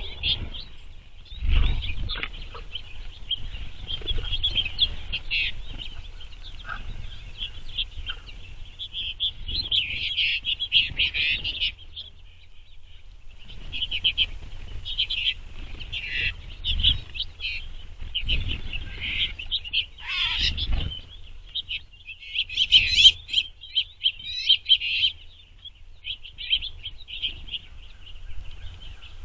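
A mixed flock of small finches twittering and chirping almost without a break, with a brief lull about halfway through. A few low thumps are mixed in.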